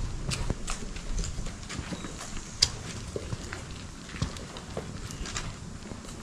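Footsteps on a brick path: shoes tapping irregularly, a couple of steps a second, with one sharper click about two and a half seconds in, over a low rumble.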